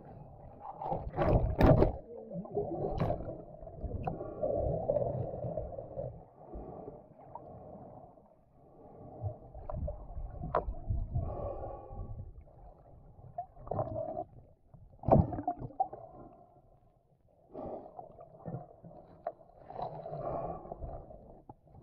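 Muffled water sound heard underwater: sloshing and gurgling in irregular swells, with a few sharp clicks and knocks, the loudest about a second and a half in and again about fifteen seconds in.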